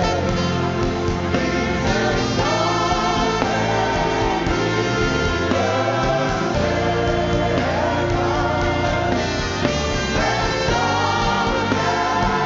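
Live gospel worship music: a band with a choir singing, over sustained string and brass parts.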